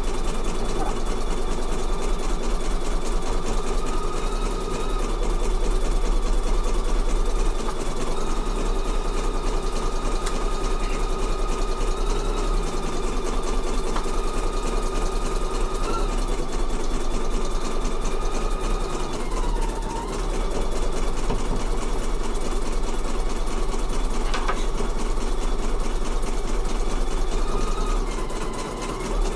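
Computerised embroidery machine stitching out a freestanding-lace star design, its needle mechanism running steadily at speed. The motor slows briefly about twenty seconds in and again near the end.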